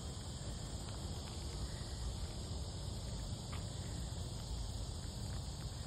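Steady outdoor chorus of insects, a continuous high shrill without pauses, over a low rumble.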